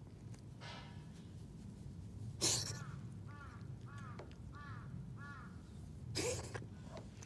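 A cat sneezing three times: a faint sneeze just after the start, the loudest one about two and a half seconds in, and another near the end, which the owner wonders may be hay fever. Between the second and third sneezes a bird calls five times in quick, even succession.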